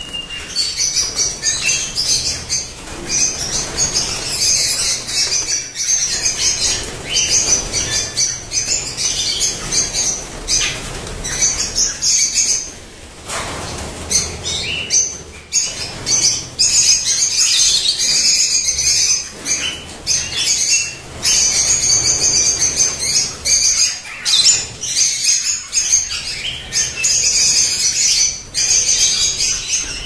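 A flock of caged parrots, lovebirds and finches calling all at once, a dense, high, unbroken chatter, with wings fluttering as birds fly about the cages. The chatter briefly thins about halfway through.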